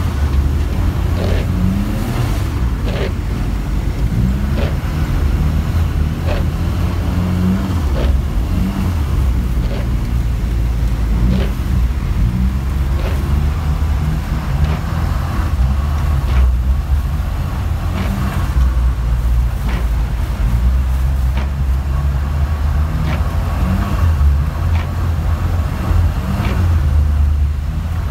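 Saab 90 Turbo's turbocharged engine heard from inside the cabin under hard racing, revving up and falling back again and again as the driver works through the gears. Sharp knocks come every second or two over the engine.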